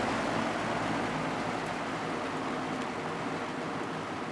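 1980s Galaxy 3713 three-speed box fan running on low: a steady rush of moving air with a faint motor hum, gradually getting quieter as the blades slow to low speed. It runs smoothly, without the wobble it has on high.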